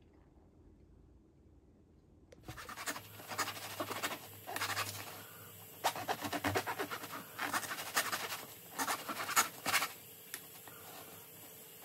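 Knife sawing back and forth through a crusty seeded bread loaf on a wooden cutting board, a run of rasping, scratchy strokes with crisp crackles of crust, starting about two and a half seconds in after a quiet start.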